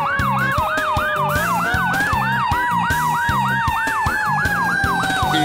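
Fire truck siren in a fast yelp, a quick rising whoop repeating about three times a second, over a steadier siren tone that slides down in pitch through the second half as the engine goes by. Background music with a steady beat plays underneath.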